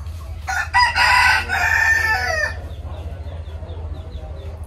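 A rooster crows once, a loud call of about two seconds that falls in pitch at the end.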